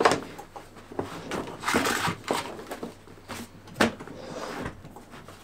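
Handling noise from power tools and their cords being shifted about in a wooden drawer: a string of separate bumps and rustles, with one sharper knock about two-thirds of the way in.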